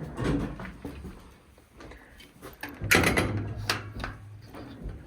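Knocks, rattles and scraping, loudest about three seconds in, followed briefly by a low steady hum.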